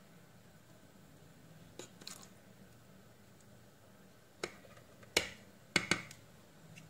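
A metal spoon clicking against a plastic chopper bowl as spoonfuls of mayonnaise are scooped in and knocked off, with a few sharp clicks in the second half and softer scraping before them.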